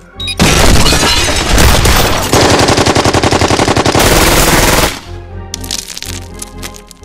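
Rapid machine-gun fire: a loud, dense burst of quick shots starting about half a second in and cutting off near 5 s, over background music.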